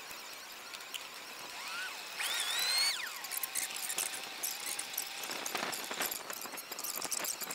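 Wood fire crackling in a stone fire pit under a spit roast, a dense run of small quick clicks, with a short high squeak and then a louder rising squeal a few seconds in.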